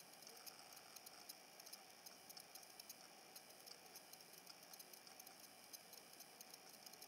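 Faint, irregular small ticks and scratches of a sharp knife tip picking and scraping stuck bits of acetate sheet off cured resin.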